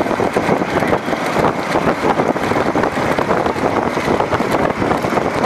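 Loud, steady road noise of vehicles on the move, with wind buffeting the microphone.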